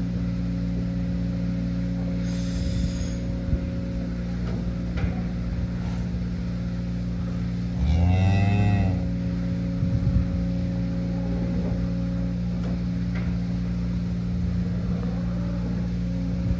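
A cow moos once, a single call about a second long, over a steady mechanical hum.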